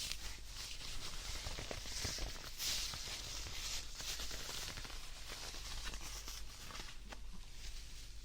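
Close-up rustling and scratching of a plush teddy bear being rubbed and handled, in irregular soft strokes.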